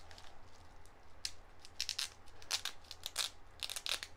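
Black plastic bubble wrap being pulled and unwrapped from a crystal by hand: short crinkling, rustling bursts in several clusters, starting about a second in.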